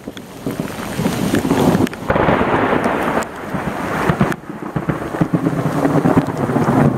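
Heavy rain pouring onto a lake and the surrounding forest in a thunderstorm, with a low rumble that swells and drops several times.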